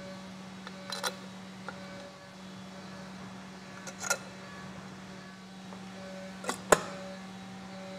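A few sharp metallic clicks and clinks of tools and bolts being handled while the clutch cover bolts go in: one about a second in, one about four seconds in, and two close together near the end, the last the loudest. A steady low hum runs underneath.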